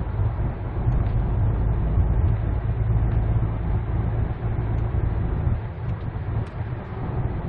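Interior cabin noise of a 2014 Hyundai Santa Fe DM SUV driving at road speed: a steady low rumble of engine and tyre-road noise.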